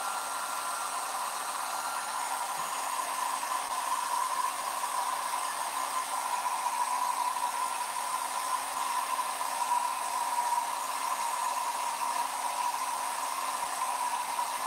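Hair dryer running steadily: a rush of air with a steady whine over it.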